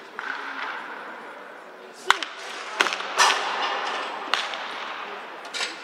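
Batting practice: about five sharp cracks of wooden bats hitting baseballs, the loudest about two seconds in, with a murmur of voices behind.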